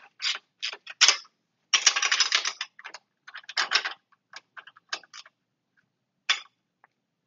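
Socket ratchet wrench clicking in quick runs as the clamp bolts on a reverse-osmosis membrane housing are tightened. The clicking is densest about two seconds in and thins to scattered single clicks near the end.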